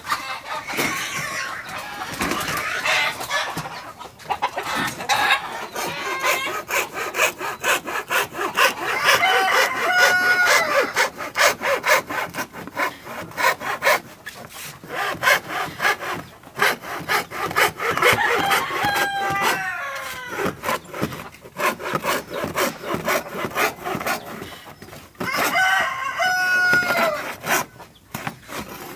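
Hacksaw cutting a thin sheet of 3 mm caobilla plywood in quick back-and-forth strokes, pausing briefly now and then. A rooster crows three times over the sawing.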